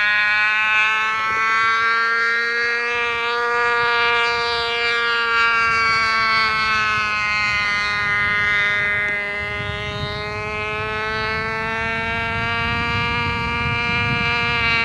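Model-aircraft glow engine, a K&B 6.5, running flat out in flight: a steady, high buzzing whine whose pitch drifts slowly up and down. A low rumble joins it in the second half.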